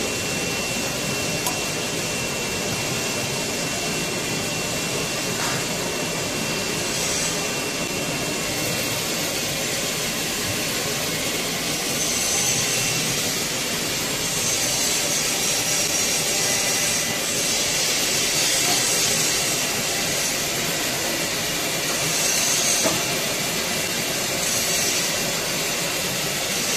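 Steady rushing machinery noise in a workshop, with louder bursts of high hissing several times.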